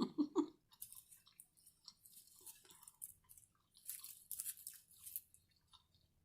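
Close-miked eating sounds: a person chewing with crisp, crunchy bites in short crackly bursts, densest about four to five seconds in.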